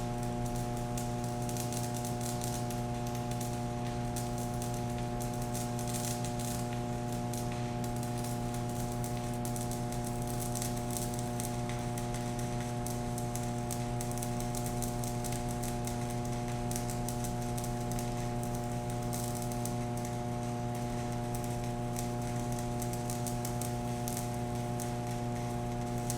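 Stick-welding arc crackling and sizzling steadily as an E6013 rod burns at 60 amps from a Riland MMA205SE inverter welder, over a constant electrical hum. The arc strikes easily on cold steel and runs smoothly.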